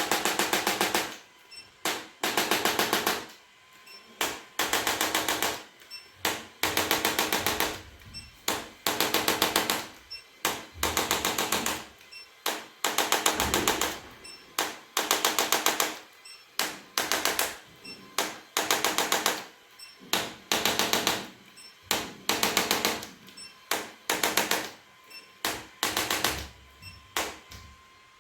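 Rapid, machine-like rattling taps in short bursts, roughly one burst a second, starting and stopping again and again.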